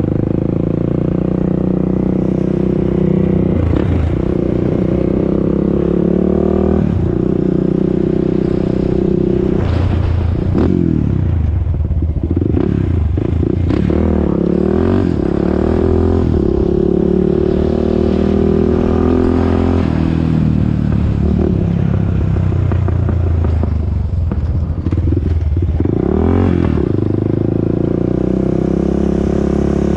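Honda TRX400EX ATV's single-cylinder four-stroke engine running under way, its pitch climbing and falling again and again as the throttle is opened and closed and the gears change.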